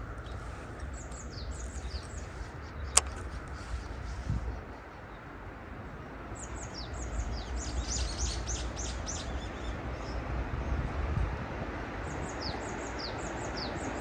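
Small birds chirping in quick runs of short, high, falling notes, in three bunches, over a steady low rumble; a single sharp click about three seconds in.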